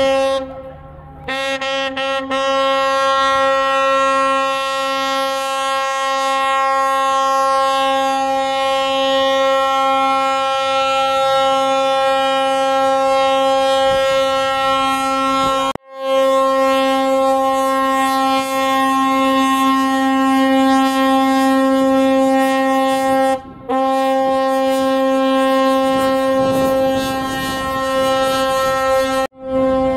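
Ship's horn sounding a long, steady, loud blast on one pitch, broken by short gaps about a second in, about halfway through, and again some seconds later.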